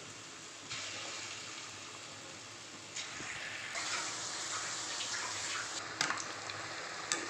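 Sweet kachayam batter fritters deep-frying in hot oil in an aluminium kadai: a steady sizzling and bubbling that grows louder under a second in and again about three seconds in. Near the end a wire skimmer clicks twice against the pan.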